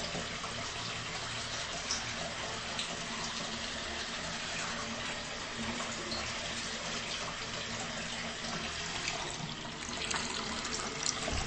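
Bathroom tap running into a sink, a steady rush of water.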